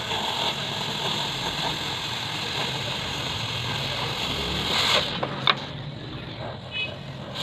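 Oxy-fuel cutting torch hissing steadily as it cuts through steel plate. The hiss drops away about five seconds in, followed by a single sharp click.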